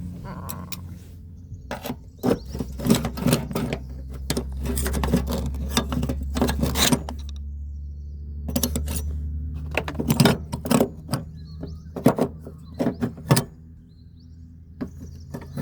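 Irregular clinks, knocks and rattles of hand tools on metal fittings as the LPG filler parts are worked loose, over a low steady rumble.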